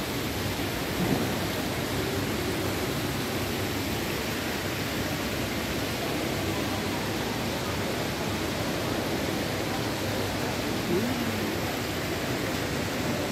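Steady, even background hiss of a large mall atrium's ambience, with faint distant voices briefly about a second in and again near the end.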